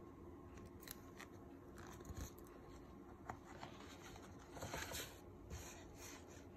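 Glossy graphic-novel pages being handled and turned: faint paper rustles and slides, loudest about five seconds in.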